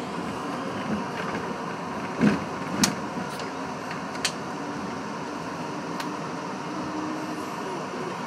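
R62A subway train running along an elevated track, heard from inside the front car: a steady rumble of wheels and running gear with a few sharp clacks between about two and four and a half seconds in.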